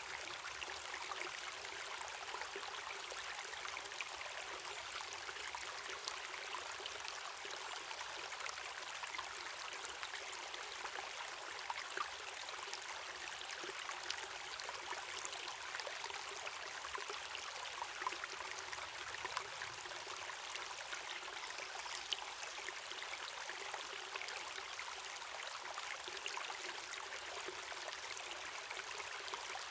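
Waterfall and river water running steadily: an even rushing hiss with hardly any low rumble, dotted with brief splashes and drips.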